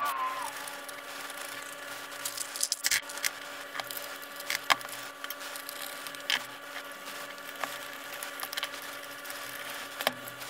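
Handling noise: scattered light clicks and knocks of small metal parts, tools and plastic packaging being moved about on a work mat, over a steady faint hum.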